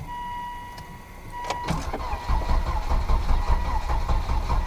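Volvo V70 engine cranking on the starter without catching, run with no exhaust fitted. A steady electronic beep sounds for about the first second and a half before the cranking starts.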